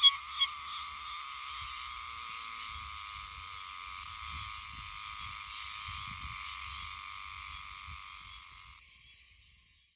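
Oshima cicada (Meimuna oshimensis) singing: a few pulsed notes at about three a second, running into a continuous high buzz that cuts off about nine seconds in.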